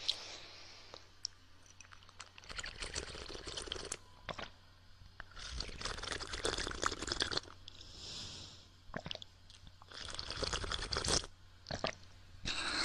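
Close-up ASMR ear-licking mouth sounds: three stretches of wet licking noise with scattered mouth clicks between them, over a faint steady low hum.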